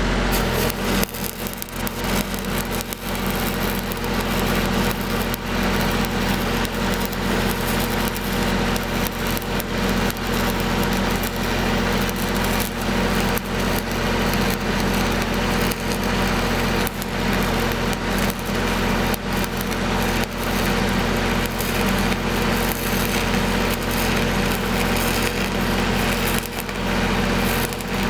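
Stick welding arc crackling and spitting steadily as 8010 rods are burned, with the engine of a Lincoln SAE 300 engine-driven welder running underneath.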